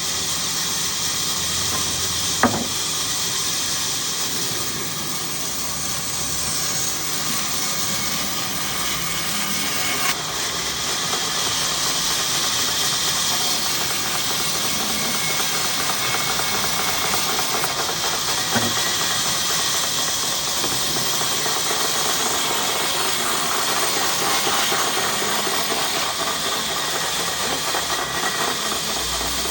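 Woodcutting machine running steadily with a loud hissing noise and a low mechanical rumble. A few sharp knocks stand out: one a couple of seconds in, one about ten seconds in, and one a little past the middle.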